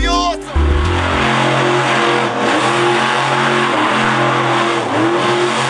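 Monster truck engine revving up and down over and over while the truck spins out on dirt, the engine pitch rising and falling about once a second over a steady hiss.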